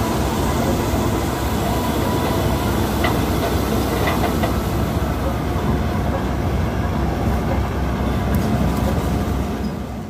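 Combine harvester running: a loud, steady mechanical rumble with a few light knocks about three and four seconds in, falling away at the very end.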